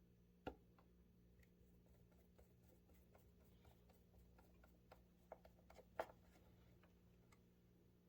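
Faint clicks and light taps of hand tools on engine parts, with two sharper clicks about half a second in and about six seconds in, over a faint steady hum.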